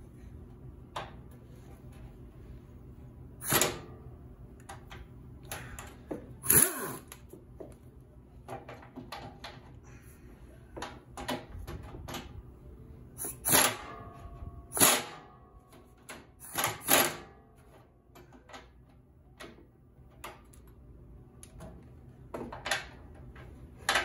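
Scattered metallic clinks and scrapes of a socket tool on the steel nut and bolt of a washing-machine tub's hose clamp, a handful of sharper clacks apart from the rest with quieter fiddling between them. The socket is not gripping the nut well.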